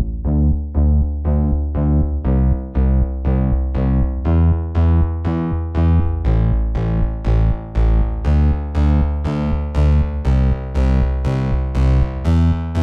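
Background music of short, evenly repeated keyboard notes, about three a second, over a low bass line.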